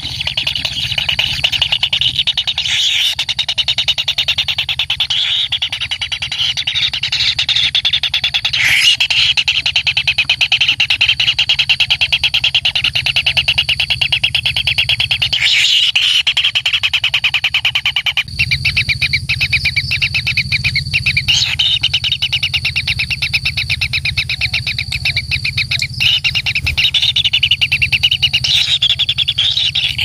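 White-throated kingfisher nestlings in their burrow giving continuous rapid, rasping begging calls, over a low steady hum.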